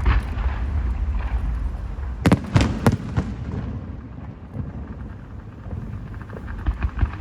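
Fireworks going off: a bang at the start, then a quick cluster of about four sharp bangs some two seconds in, over a steady low rumble, with a few smaller pops near the end.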